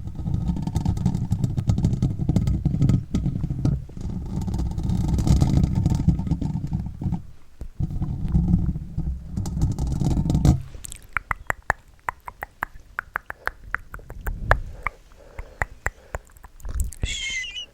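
ASMR mouth sounds made close to the microphone: about ten seconds of a loud, low rumble that breaks off twice, then a run of quick, wet mouth and tongue clicks.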